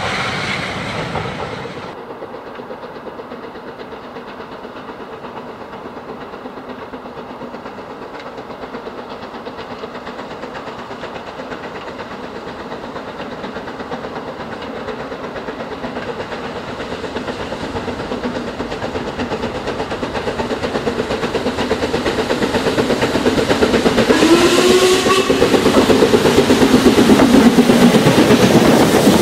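Steam locomotive and train approaching and growing steadily louder, then passing close by at the end with wheels clattering over the rail joints. About 24 seconds in, its whistle sounds briefly as a short wavering tone.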